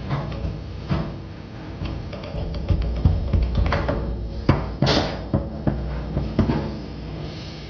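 Foosball rally on a Tornado table: the ball is struck and blocked by the plastic men, giving rapid, irregular clacks and knocks against the rods and table walls, loudest in a burst of hits about halfway through.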